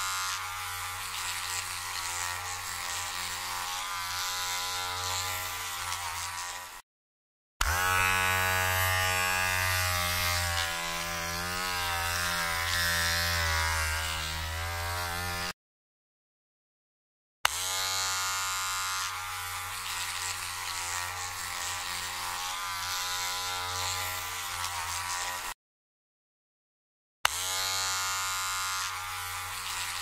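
Electric hair trimmer buzzing in runs of about eight seconds. It cuts off abruptly between runs, and each new run starts with a click as it is switched on. In one run the pitch wavers.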